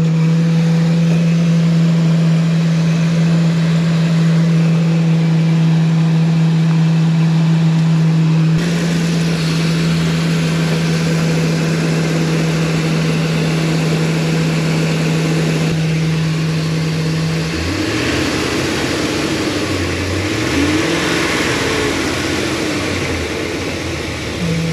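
Ford E-250 van engine idling, with a steady droning tone that the owner calls a weird noise he can't explain. About two-thirds of the way through, the tone drops away and uneven wavering pitches take over, then the tone returns near the end.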